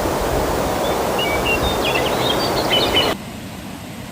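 Rushing water of a small waterfall cascading down a mossy rock wall, with birds chirping over it. The rush drops away suddenly about three seconds in.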